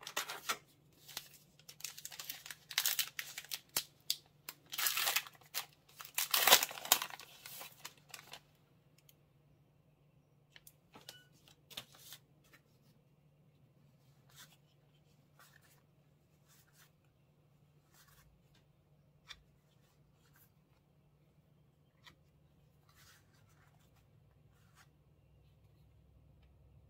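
A baseball card pack's wrapper being torn open and crinkled, in several loud bursts over the first eight seconds. Then come scattered soft ticks and slides as the cards are flipped through one by one.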